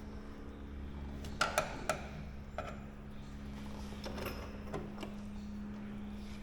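Hand work on light-aircraft undercarriage parts: a handful of sharp knocks and clicks, the two loudest close together about a second and a half in and weaker ones later, over a steady low hum.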